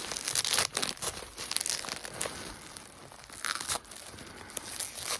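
Packaging being torn and crumpled by hand, in irregular crackling bursts as the parcel holding a CD is opened.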